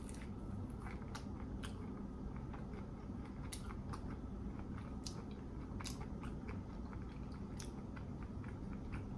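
A person chewing crispy fried clams, with a dozen or so short, irregular crunches over a steady low hum.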